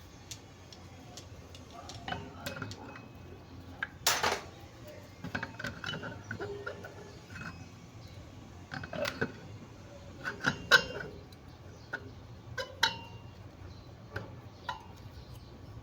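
Metal tools and alternator parts clinking and knocking against each other at irregular moments, several strikes ringing briefly; the loudest knock comes about four seconds in, with a cluster around ten to eleven seconds.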